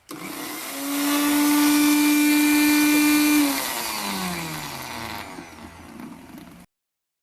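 Suruchi Elantra 800-watt mixer grinder's motor starting up and running at a steady high pitch for about three seconds. It is then switched off and winds down with a falling whine, and the sound cuts off abruptly near the end.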